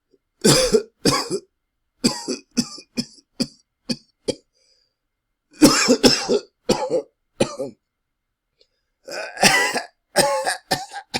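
A person coughing loudly in four separate fits, each a quick run of two to six coughs, with complete silence between the fits.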